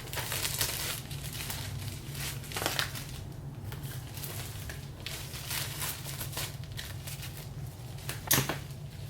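Packaging being handled and opened: irregular crinkling, rustling and tearing, with one sharp tap near the end.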